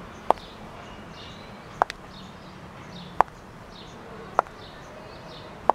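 Stiletto high heels clicking on stone paving in slow, even steps, five sharp clicks about a second and a half apart. Birds chirp faintly in the background.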